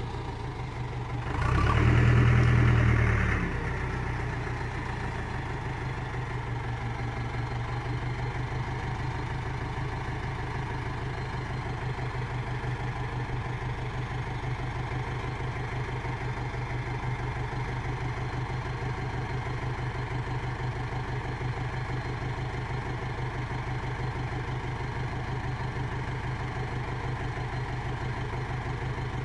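Tractor's diesel engine idling steadily with an even low pulse, briefly revved up about two seconds in before settling back to idle.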